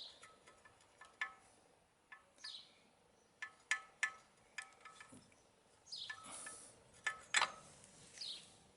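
Light metallic clinks and taps, several of them scattered and each ringing briefly, as steel fork spindle clamps and their bolts are handled and offered up to the fork leg. A bird gives a short falling call every couple of seconds behind them.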